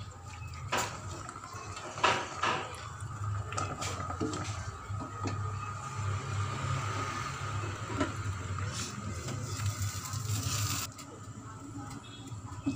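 Water boiling in a stainless-steel pot, a steady bubbling hiss, with a few sharp knocks and scrapes as a plastic slotted skimmer stirs and lifts blanched greens. The hiss drops away suddenly near the end.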